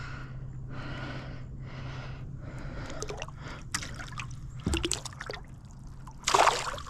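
Water splashing and trickling, with scattered small knocks and one short, louder splash near the end.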